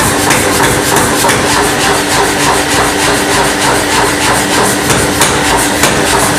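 Power hammer running and striking a red-hot steel nipper blank in rapid, regular blows, several a second, over the steady hum of the hammer's motor.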